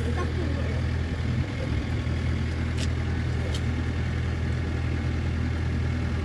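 An engine idling steadily, with two short clicks a little under a second apart near the middle.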